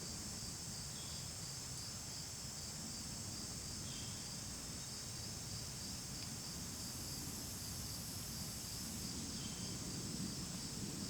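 Faint, steady chorus of crickets and other insects trilling high-pitched, with a faint short chirp every few seconds and a low rumble of background noise beneath.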